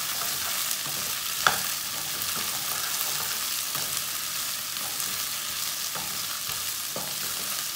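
Chopped okra sizzling in hot oil in a nonstick wok while a wooden spatula stirs it, with scraping and light knocks against the pan. There is a sharp knock about a second and a half in.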